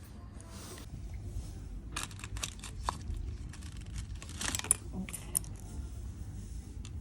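Rustling and sharp clicks of small objects being handled, clustered in the middle, over a low steady hum.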